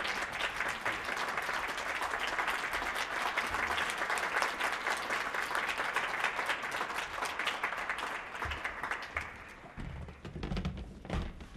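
Audience applauding, dying away about eight or nine seconds in, followed by a few low thumps.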